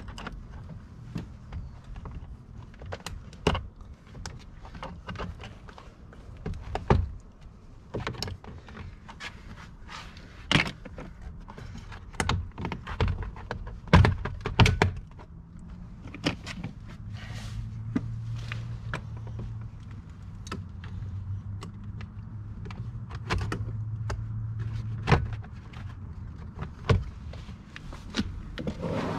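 Plastic dash trim panel around a steering column being unscrewed and pried loose: irregular clicks, knocks and snaps of a screwdriver and plastic clips, the loudest about halfway through. A low steady hum rises in the second half.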